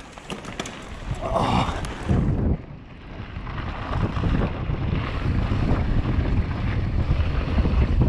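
Wind buffeting the action camera's microphone as a downhill mountain bike runs fast down a loose gravel trail, with the tyres crunching and rattling over stones. It grows louder about two and a half seconds in and stays loud.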